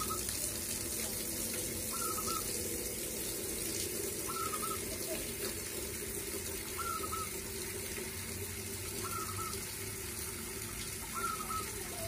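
Caged zebra dove (perkutut) calling: a short note repeated six times, about every two seconds, over a steady rushing hiss.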